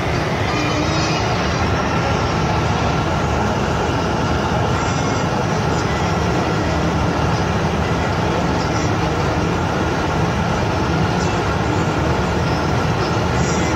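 Steady road, wind and engine noise heard inside the cabin of a car travelling at high speed, around 180 km/h.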